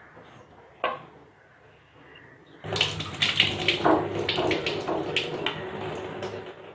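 Soaking water poured off chickpeas from a steel bowl through a mesh strainer, splashing into a stainless-steel sink, with the chickpeas tumbling and clicking into the mesh. It starts about two and a half seconds in, after a single light knock about a second in.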